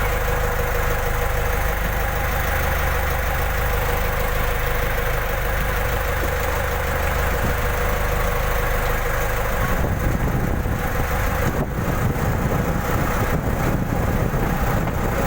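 Fishing boat's engine running steadily at sea. About ten seconds in, a rough, uneven low rumble joins it.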